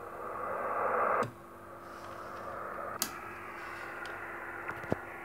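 Shortwave receiver hissing with band noise through its speaker. The hiss is louder for the first second or so, then drops, with a sharp click about three seconds in and a brief chirp near the end.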